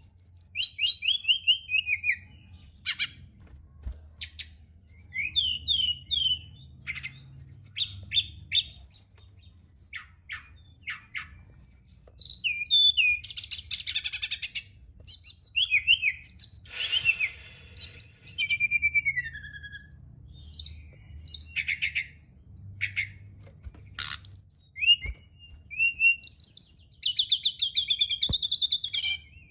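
Brown-chested jungle flycatcher (SRDC, sikatan rimba dada coklat) singing a long run of rapid, varied high whistled phrases, slurs and trills, with a few denser buzzy phrases around the middle. A faint low hum lies underneath.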